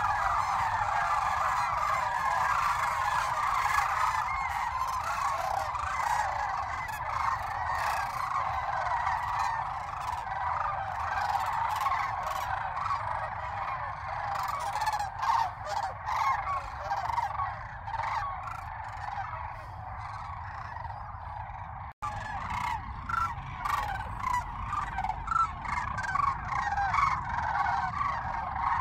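A large flock of sandhill cranes calling in flight: a dense chorus of many overlapping rolling bugles. There is a brief break about three quarters of the way through.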